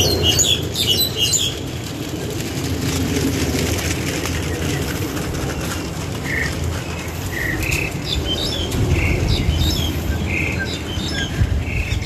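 Mynas calling from a tree: a cluster of high chirps at the start, then short repeated call notes about once a second through the second half, over a steady low background rumble.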